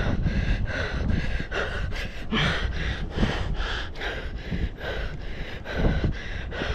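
A person breathing hard, gasping while on the move, with regular footfalls about three a second.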